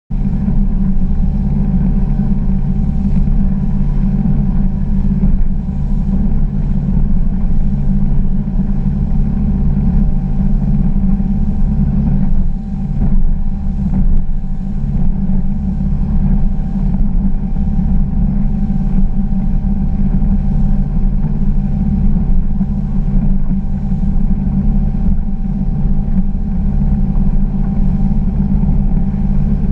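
Glastron GS205 bowrider under way at speed: its engine drones steadily, with a low rumble of hull and water noise beneath. The level dips briefly about twelve seconds in.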